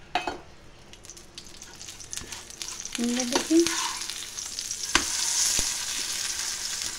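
Refined oil sizzling under an aloo paratha on a hot tawa, with a spatula scraping and knocking on the pan a few times. The sizzle swells about halfway through and stays loud.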